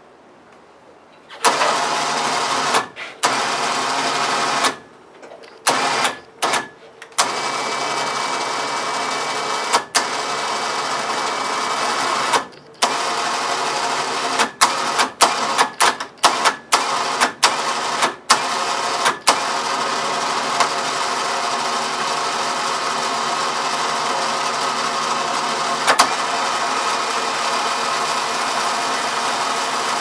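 Electric winch (4,500 lb, synthetic line) hauling a large fir log onto a sawmill, run from a handheld remote. Its motor and gears whir in stop-start bursts, jogged on and off rapidly through the middle, then run steadily under load.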